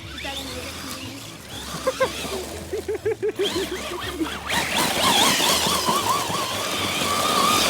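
Electric motors of radio-controlled cars whining and wavering in pitch as the throttle is worked, getting louder with tire noise about halfway through.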